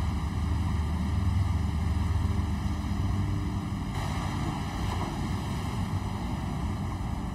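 Steady low drone of a crab fishing boat's engines and machinery, heard from inside the vessel.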